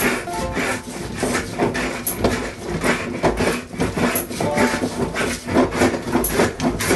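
Hand tool working pallet wood with rapid, repeated scraping strokes.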